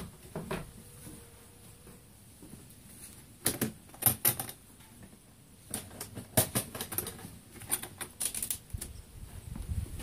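Sharp clicking and clattering of the metal latch clamps on a plastic Apimaye Langstroth hive being unfastened, in three quick clusters of clicks with a single knock at the start.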